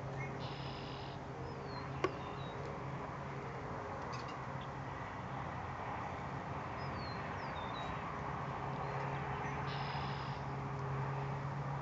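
Outdoor ambience: a steady low hum and a soft noise bed, with brief high chirps scattered through and a single sharp click about two seconds in.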